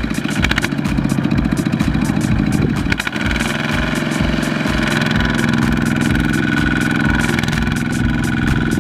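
Single-cylinder diesel engine of a two-wheel walking tractor running under load, hauling a trailer of rice sacks through sticky mud, with a fast even firing beat. About three seconds in the engine note changes and settles into a steadier tone.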